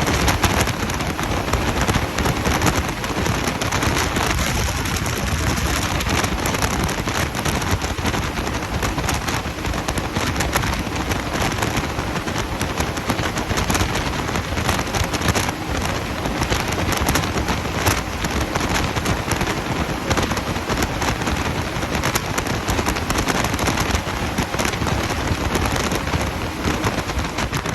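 Hurricane simulator's blowers driving wind of up to 74 mph through the booth, a steady rush of wind with constant crackling buffeting on the microphone.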